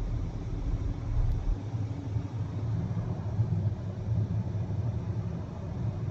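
Steady low rumble of road and engine noise inside the cabin of a Volvo XC90 B5 diesel mild-hybrid SUV cruising at about 50 km/h.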